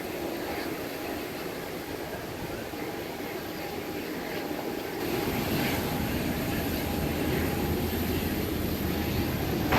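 Steady rushing noise of a parked jet airliner with a faint constant whine, growing louder about five seconds in.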